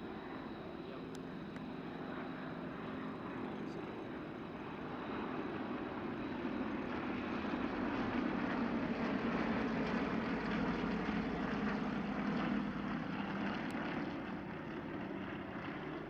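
A formation of Nanchang CJ-6A and Yak-52 trainers, each with a nine-cylinder radial engine and propeller, flying overhead with their engines running together in a steady drone. The drone grows louder toward the middle and eases a little near the end.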